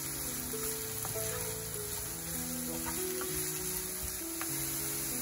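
Sliced onions sizzling in a frying pan while a wooden spatula stirs them, with a few light scrapes. Soft background music with a slow melody plays over it.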